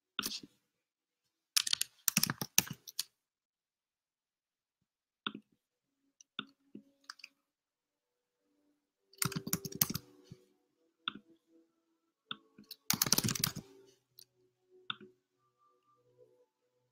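Scattered clicks and a few short clusters of rapid clicking, the densest about two, nine and thirteen seconds in, with quiet gaps between.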